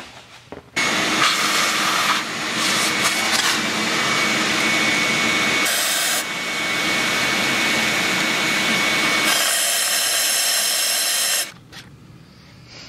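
Compressed-air blow gun blasting into a freshly tapped head-bolt hole in a Toyota 2AZ-FE engine block through the tap guide, clearing the tapping debris out of the hole. A steady hiss starts about a second in, runs about ten seconds with a faint whistle in it and a few brief changes, then cuts off.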